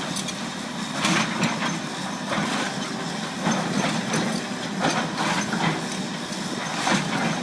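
Excavator's diesel engine running steadily, with sharp cracks and crunches of breaking timber about once a second as a wooden house is torn down.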